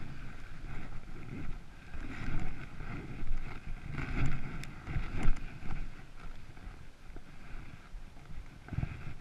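Gusty wind buffeting the microphone in uneven low rumbles, with a few sharp clicks and scrapes about halfway through, as from a hiker moving over rock.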